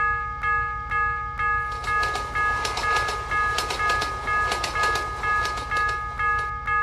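Railroad crossing warning bell ringing at about two rings a second. From about a second and a half in, a train passes, its wheels clattering over the rail joints.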